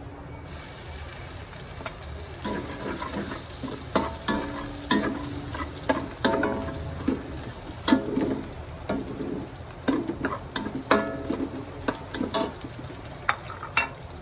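Chopped garlic sizzling in hot oil in a metal wok, while a metal spatula scrapes and knocks against the pan, ringing briefly about once a second as the garlic is stirred.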